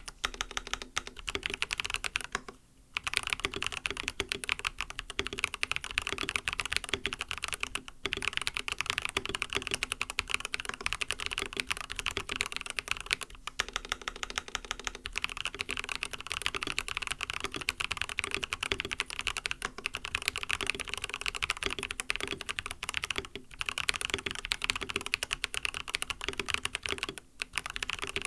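Steady fast typing on an mStone Groove T mechanical keyboard with lubed MMD Coral switches and a silicone plate foam: a dense run of keystroke clacks with brief pauses, about two and a half seconds in and again near the end.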